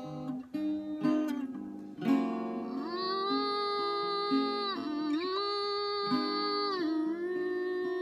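Picked acoustic guitar, joined about two seconds in by a woman's wordless singing in long held notes.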